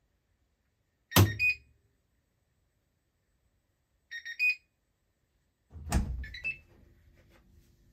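Siemens iQ700 washing machine signalling the end of its programme: a click with a short electronic chime about a second in, then a quick three-note electronic chime about four seconds in. Near the end comes a louder clunk at the door as the machine is opened.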